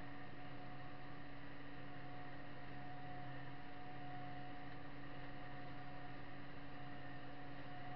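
New Holland T6.155 tractor running steadily under load with a rotary tiller, heard inside the closed cab as an even hum with a few fixed tones.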